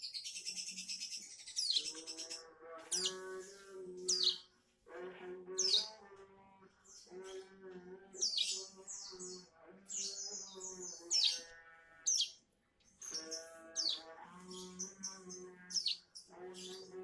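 A ciblek gunung (hill prinia) singing. A rapid buzzy trill (the 'bren' it is learning) sounds in the first second or so, followed by a string of sharp, high, down-sweeping chirps. Lower pitched music plays underneath in phrases.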